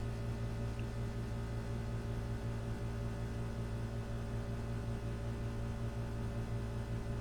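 Steady electrical mains hum with a low buzz.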